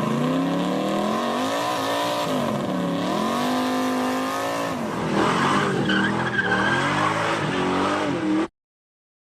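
Car engine revving, its pitch rising and falling, with a tire-squeal-like screech joining about five seconds in; it cuts off abruptly near the end.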